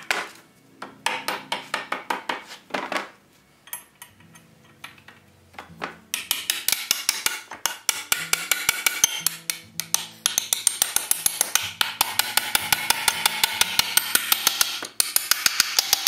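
Ball-peen hammer striking iron rivets, peening them over to fasten the iron fitting on a wooden wagon brake block. There is a short run of quick, ringing taps, then from about six seconds in a long, steady run at about five taps a second.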